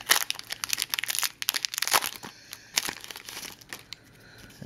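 Foil Pokémon trading-card booster pack wrapper crinkling as it is torn open by hand. The crackling is dense for the first two seconds or so, then sparser and quieter.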